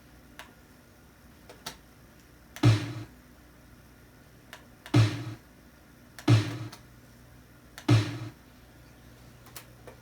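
Single drum samples from the Amiga 500's Sonic Drum Kit sounding one at a time, four separate hits at uneven intervals, each a short low thump that dies away quickly, with faint mouse clicks in between.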